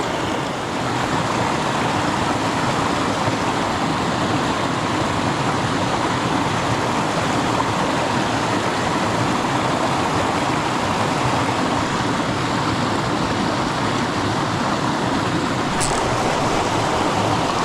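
Shallow creek water running over rocks, a steady even rush, with one brief light tick near the end.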